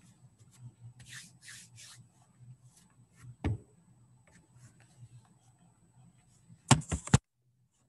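Handling noise close to a microphone: faint rubbing and brushing over a low steady hum, a single click in the middle, and a quick cluster of sharp knocks near the end, the loudest sound.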